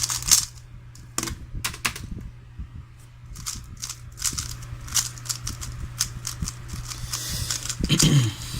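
Rapid, irregular clicking and clacking of a 3x3 Rubik's speedcube's layers being turned quickly by hand.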